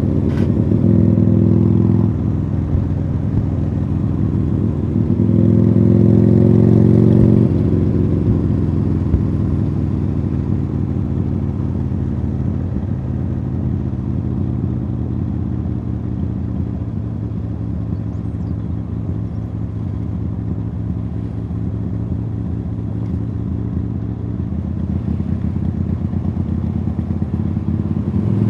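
A 2015 Harley-Davidson Sportster Iron 883's V-twin engine running through Khrome Werks Tapered 3 exhausts, heard from on board while riding. It pulls louder twice in the first several seconds, settles to a lower steady run for most of the stretch, then picks up again near the end.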